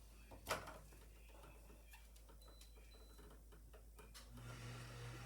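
Quiet hand-tool and wire handling: one sharp click about half a second in, then scattered faint ticks and taps. About four seconds in, a low steady hum begins.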